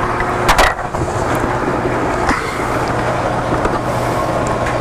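Steady mechanical hum and hiss of background equipment, with a couple of short plastic clicks as the caps are pulled off the aquarium chiller's water ports.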